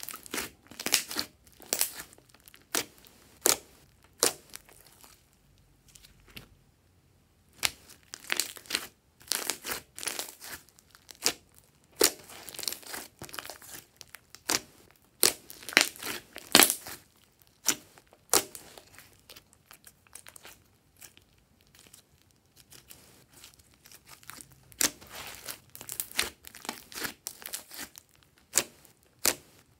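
Hands squeezing and kneading a large mass of glossy slime, making irregular sticky pops and crackles in clusters, with a couple of quieter pauses.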